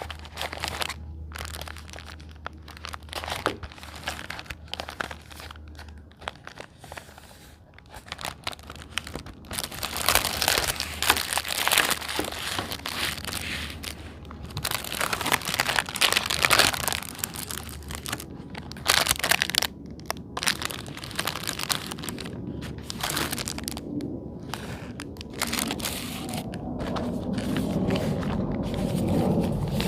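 Plastic packaging crinkling and tearing as it is handled and opened by hand, in irregular bursts that grow busier from about ten seconds in.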